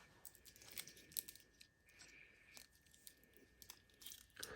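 Faint crinkles and small clicks of a watch's plastic packaging being handled, scattered and irregular.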